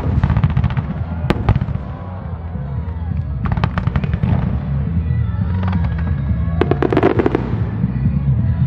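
Aerial firework shells bursting in a star-mine barrage: sharp bangs at the start and about a second and a half in, then clusters of rapid crackling bursts about three and a half seconds and seven seconds in. Music with a steady bass line plays underneath through loudspeakers.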